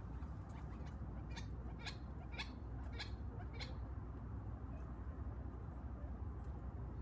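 Quail calling: a run of five short, sharp calls about half a second apart, over a steady low rumble.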